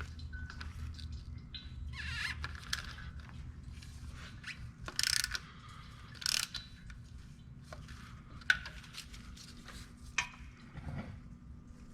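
Filter wrench working a spin-on oil filter loose: scattered metallic clicks and ratcheting, with a few short scraping sounds and two sharp clicks in the second half.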